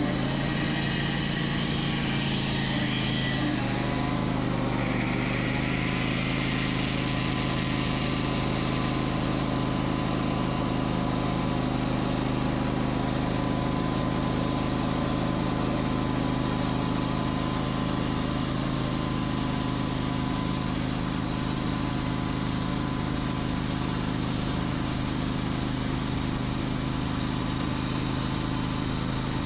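Sawmill engine running steadily with an even hum.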